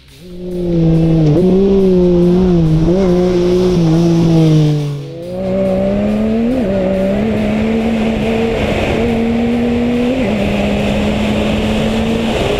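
Yamaha YXZ1000R side-by-side's 998 cc three-cylinder engine running hard under way, heard from inside the open cab; the engine note wavers with the throttle, dips briefly about five seconds in, then pulls on at a steady, slightly higher pitch.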